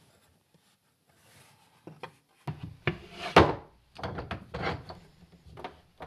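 Wooden knocks and clunks as a 2x4 jig is set into a workbench vise and the vise is screwed tight, with the rattle of the vise handle. They start about two and a half seconds in, and the loudest knock comes about a second later.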